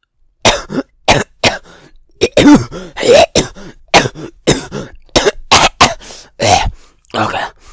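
A person with a cold coughing hard in a long fit of short coughs, about two a second, with some throat clearing.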